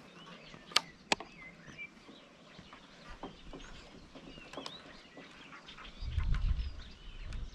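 Faint birds chirping, with two sharp clicks about a second in; from about six seconds in, heavy low thuds of footsteps on the wooden planks of a footbridge.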